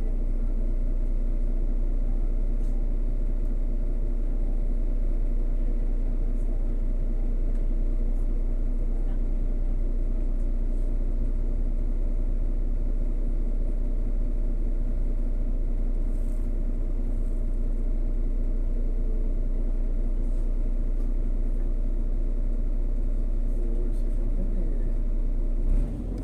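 Irisbus Crealis 18 GNV articulated bus heard from on board, its natural-gas engine running steadily with a deep rumble.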